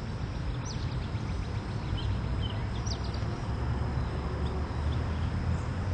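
Steady low rumble of background ambience with a few faint, short high chirps scattered through it.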